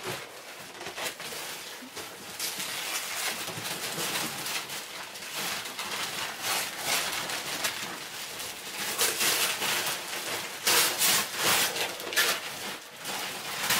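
Gift wrapping paper rustling and tearing as presents are unwrapped, in irregular crackling scrunches, loudest about nine to eleven seconds in.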